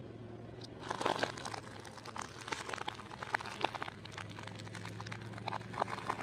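A car tyre slowly rolling over and crushing fruit and vegetables. A dense run of crunching, crackling snaps starts about a second in, over a low steady hum.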